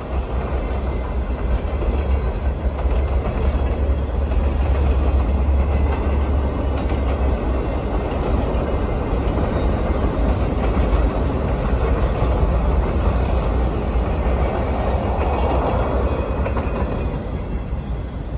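Freight train cars (boxcars, a refrigerator car and a tank car) rolling past at speed: a steady rumble and clatter of steel wheels on the rails, starting to fall off just at the end.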